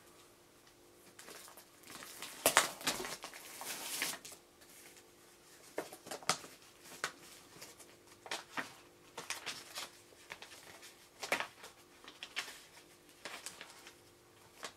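Sheets of paper being handled and unfolded, rustling and crinkling in irregular bursts, loudest a couple of seconds in, then in scattered short crackles.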